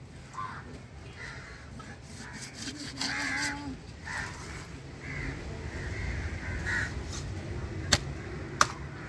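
Crows cawing several times, over a low rumble of traffic, with two sharp knocks near the end as a blade works into a cobia's head.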